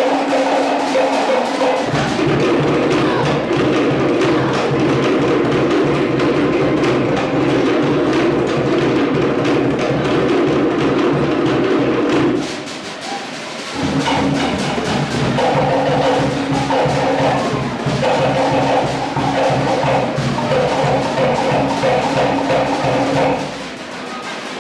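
Cook Islands drum ensemble playing a fast, driving rhythm on wooden slit drums with a bass drum. The drumming drops away briefly about halfway through and again near the end.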